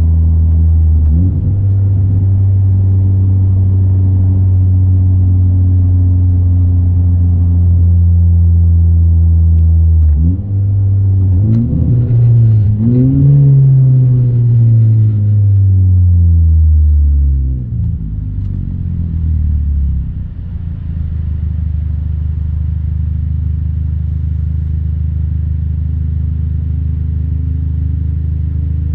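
Honda Civic Type R FK8's turbocharged four-cylinder heard inside the cabin through a J's Racing 70RS exhaust and RV6 front pipe: a steady low exhaust drone while cruising. About ten seconds in the revs climb, then fall away over several seconds before it settles back into the drone.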